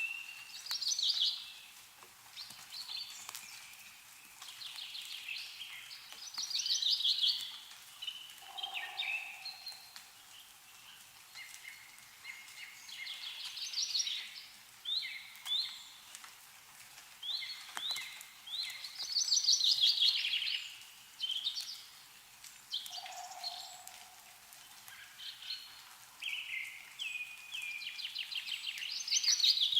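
Songbirds singing one repeated, quick, trilling phrase after another, with a few sharp drips of meltwater falling from snow-laden trees. A shorter, lower call sounds twice, about nine seconds in and again near the three-quarter mark.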